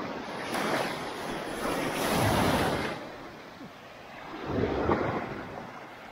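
Small sea waves breaking and washing through the shallows right at the microphone. There are two surges of rushing water, a long one starting about half a second in and a shorter one near five seconds.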